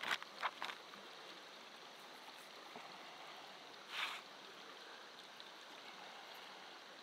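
Faint, steady rush of a flowing river. A few short crinkles of a plastic bag being handled come in the first second, and a brief rustle comes about four seconds in.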